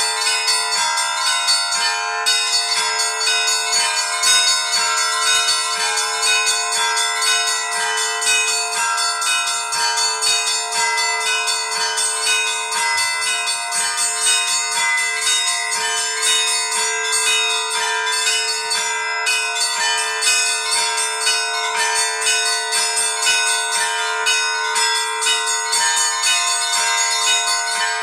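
Traditional Orthodox Paschal peal on seven church bells, struck by an automatic electronic bell-ringing system. Rapid, continuous strikes on the smaller bells ring over a steady, sustained lower bell tone.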